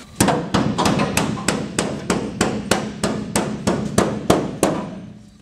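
Hammer blows on the sheet-steel floor pan and rocker of a 1957 Chevy Bel Air, a quick even run of about four taps a second that weakens and stops near the end.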